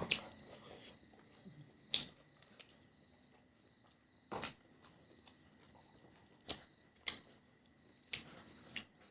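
Eating sounds from a person's mouth close to the microphone: about seven short, sharp clicks and smacks, spaced a second or two apart, over a quiet room.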